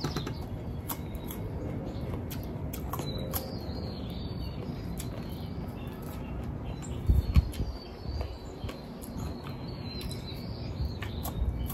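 Small clicks and taps of a paring knife cutting fruit over a plate, with faint bird chirps behind and a low thump about seven seconds in.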